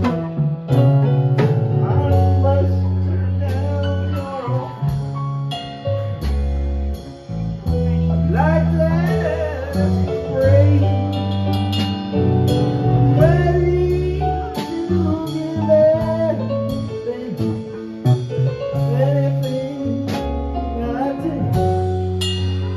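A live rock band playing a slow song: electric bass holding long notes, electric guitar and keyboard, and drums keeping a steady beat on the cymbal.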